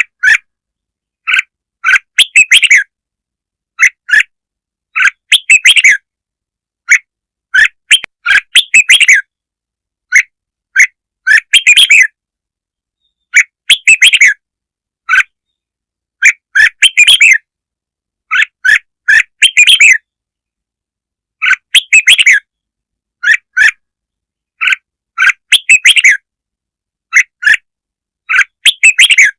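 Red-whiskered bulbul song: loud short chirping phrases repeated every second or two, with dead-silent gaps between them. It is a lure call used to provoke bulbuls.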